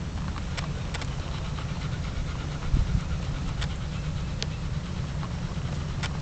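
Handheld camera-handling noise as palm fronds brush past the microphone: a steady low rumble with scattered light clicks and rustles, and a thump about three seconds in.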